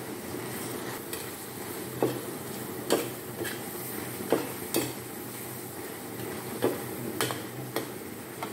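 A perforated steel ladle scraping and clinking against a wok about seven times as squid and vegetables are stir-fried, over a steady sizzle from the hot wok.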